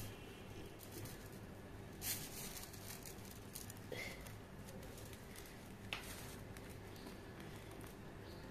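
Kittens scuffling on a bedspread and batting at a bundle of dry broom straws: faint rustling and scratching, with a few brief louder rustles about two, four and six seconds in, over a low steady hum.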